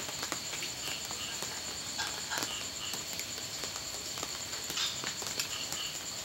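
Crickets and other insects chirping, a steady high trill with a second insect chirping in short repeated pulses. Scattered light clicks of a ladle and chopsticks against bowls and a metal hotpot.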